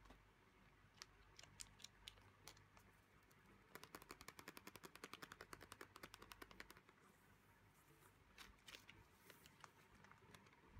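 Faint fingernail taps on the plastic-wrapped cover of a CD album: a few scattered taps, then a quick even run of about ten taps a second lasting some three seconds, then a few more taps near the end.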